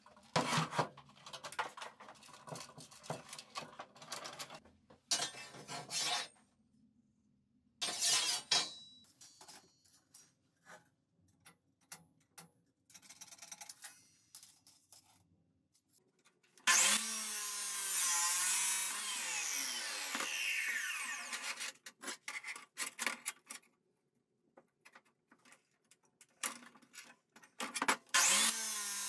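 Abrasive cut-off chop saw running and cutting steel square tubing for about seven seconds, starting some 17 seconds in, with a falling whine as it winds down. It starts up again near the end. Before that, scattered knocks and clatter of metal tubing being handled and clamped.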